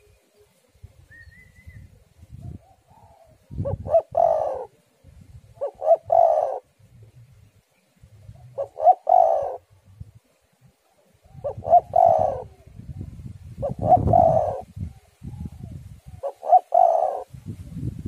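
Spotted dove singing: six cooing phrases, each a quick run of notes, about every two to three seconds. Underneath is a gusty low rumble of wind on the microphone.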